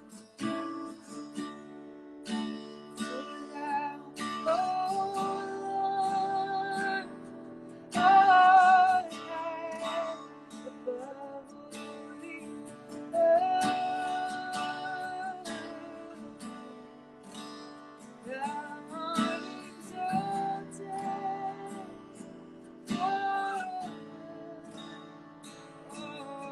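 Slow worship song: an acoustic guitar strumming chords under a woman singing long held notes with a wavering vibrato.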